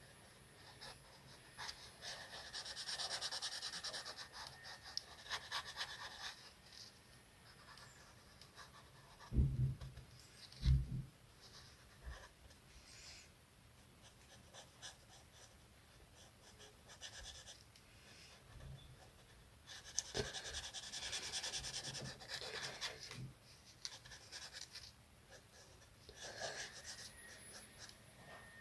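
Colouring on paper: spells of scratchy strokes in the first few seconds and again about twenty seconds in, with quieter scratching between, over tired breathing close to the microphone. Two short low thumps, about nine and eleven seconds in, are the loudest sounds.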